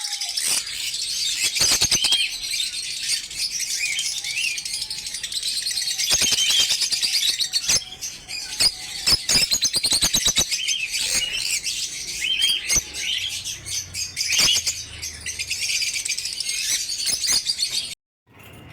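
A flock of caged lovebirds chattering with dense, continuous high-pitched chirps and squeaks, with many sharp clicks mixed in. The chatter cuts off abruptly near the end.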